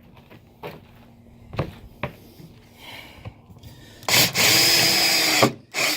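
Power drill driving a Tek self-drilling screw into the subfloor: a loud steady motor run of about a second and a half near the end, then starting again, after a few light knocks.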